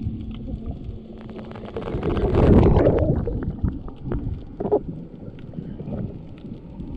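Water sloshing and gurgling around a wet or submerged camera, over a steady low motor hum. About two seconds in, a loud rush of water noise swells for a second, followed by scattered knocks and clicks.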